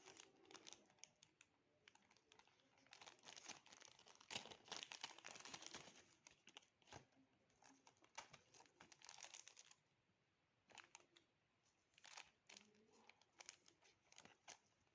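Faint crinkling and rustling of packaging being handled and torn open, with dense crackles from about three to ten seconds in and scattered bursts after.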